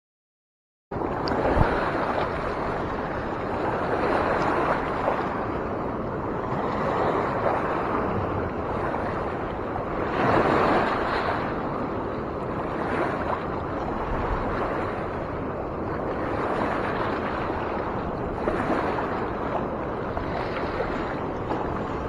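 Fast-flowing river water rushing steadily, with gusts of wind buffeting the microphone. It cuts in abruptly about a second in.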